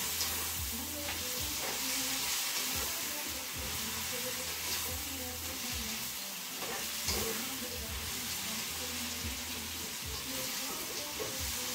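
Chopped leeks, carrots and tomatoes sizzling steadily in oil in a non-stick frying pan as they are stirred, with the spatula now and then clicking and scraping against the pan.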